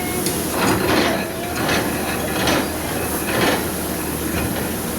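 Steamboat steam engine running: a steady hiss with a rhythmic chuff roughly once a second, four chuffs in the first few seconds.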